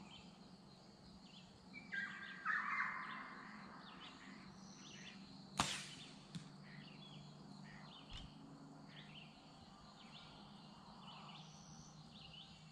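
An arrow shot at 60 yards strikes the target about halfway through with a single sharp smack, followed by a fainter click. Birds chirp throughout, with a louder, harsh call near the start.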